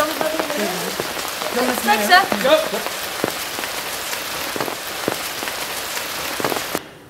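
Steady rain-like rushing noise, with a short burst of voices about two seconds in; it cuts off abruptly near the end.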